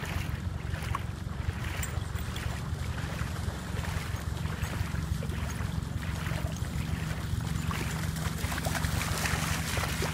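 Wind buffeting the microphone with a steady low rumble, while dogs splash through shallow water; the splashing grows louder near the end as they come close.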